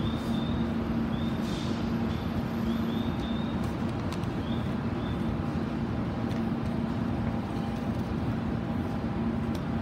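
Railway station platform ambience: a steady low hum over a rumbling background noise, with short faint high chirps repeating about once a second through the first half.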